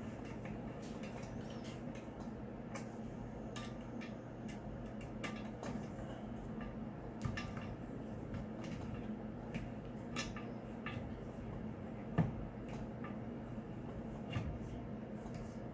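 Scattered light clicks, clinks and knocks of hand tools and small parts being handled and set down, with a sharper knock about twelve seconds in, over a steady low hum.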